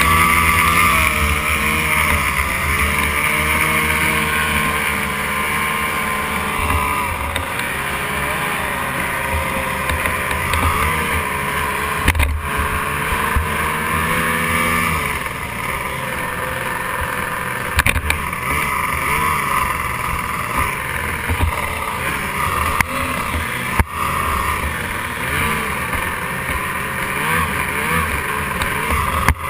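Racing outboard engine of a stock outboard hydroplane running at speed, heard from aboard the boat, its pitch wavering up and down, over wind buffeting the microphone and rushing water. Three sharp knocks stand out, about a third, three fifths and four fifths of the way through.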